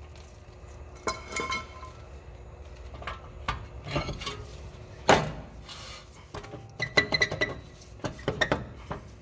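Scattered metal clinks and knocks, a few ringing briefly, the loudest about five seconds in. They come from working the BMW 750i's parking brake shoe adjuster and brake disc by hand while setting the shoes' clearance to the drum.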